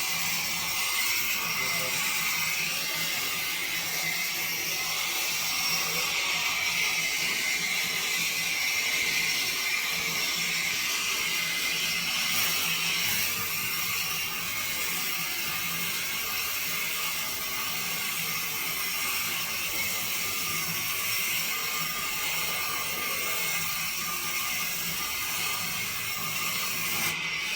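Sawmill machinery running steadily: a continuous hiss-like mechanical noise with a low hum underneath.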